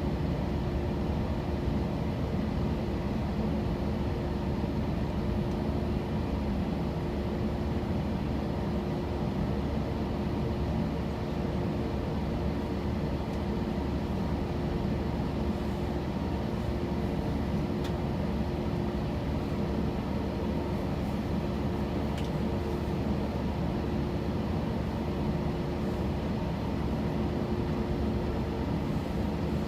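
Steady cabin noise inside an Airbus A321 taxiing after landing: the engines at idle and the air conditioning make an even rumble with a few steady hums, and two faint ticks come in past the middle.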